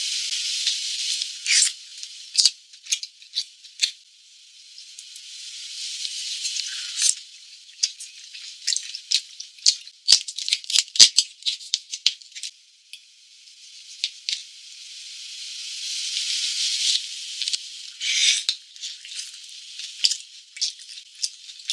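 Close-up eating of steamed seafood: rising slurps followed by bursts of crackling clicks from shells and chewing, repeated a few times. The sound is thin and high, with no low end.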